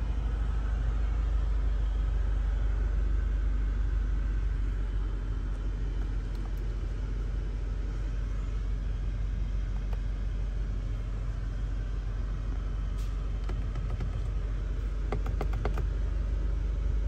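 BMW M5 Competition's 4.4-litre twin-turbo V8 running steadily with a low, even rumble and no revving. A quick run of faint clicks comes near the end.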